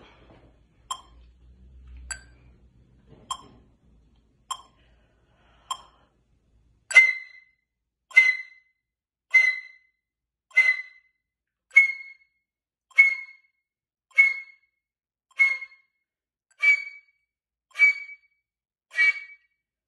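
A metronome clicks at 50 beats per minute, five times on its own. Then a concert flute joins on the beat with very short, sharply accented notes on high B, each attacked with a 'ja' pushed from the lower abdomen, a throat-opening exercise. The last few notes are a little higher.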